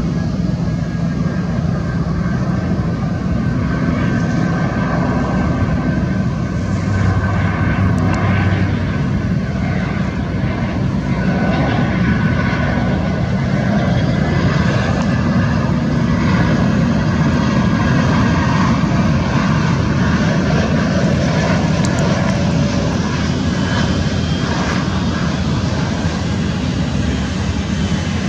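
Airbus A319 airliner's jet engines on final approach to landing: a steady loud roar with a high thin whine running through it.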